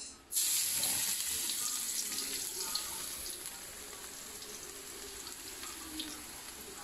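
Minced garlic sizzling in hot oil in a wok, a steady frying hiss with small crackles. It starts abruptly, is loudest at first and then settles to a lower level.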